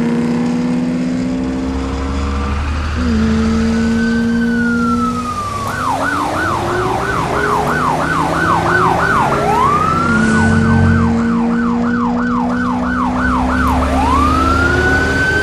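Emergency-vehicle siren alternating between a slow rising and falling wail and a fast yelp of about three and a half sweeps a second, with a low steady drone beneath.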